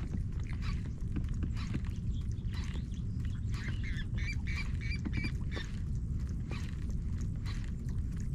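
A bird giving a quick series of short calls, about five in a second, around four to five seconds in, over a steady low rumble.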